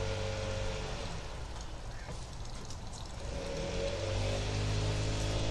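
Engine of neighbours' lawn-care equipment running steadily in the background. It drops away for a few seconds in the middle and comes back up near the end.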